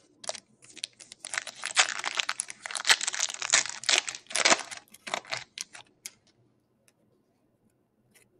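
Foil trading-card pack wrapper torn open and crinkled by hand: a dense run of crackling and tearing that lasts about six seconds.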